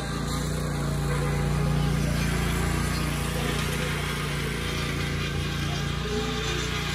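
Riding lawn mower engines running steadily, the nearest a red lawn tractor, with a zero-turn mower out on the lawn.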